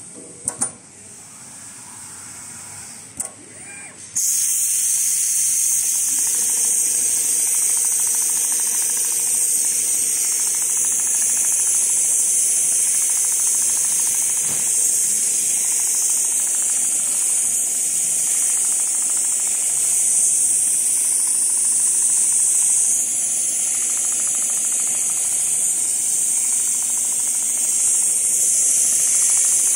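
Richpeace CNC leather sewing machine at work, with a couple of sharp clicks early on. A loud, steady hiss of air starts suddenly about four seconds in and carries on level over a faint machine hum.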